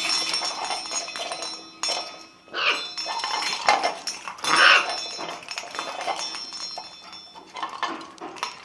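Metallic clinking and clattering throughout, with a blue-and-gold macaw calling loudly twice, about two and a half and four and a half seconds in.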